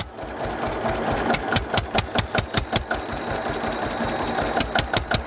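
Old tractor engine running, with sharp exhaust beats at about five a second that come in two spells, a steadier running sound in between.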